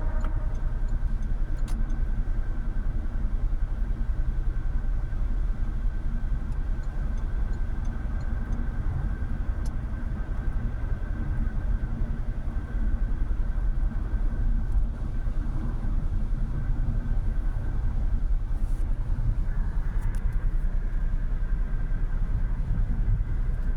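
2013 Renault Mégane III's 1.5 dCi four-cylinder turbodiesel driving, heard from inside the cabin: a steady low rumble of engine and road noise.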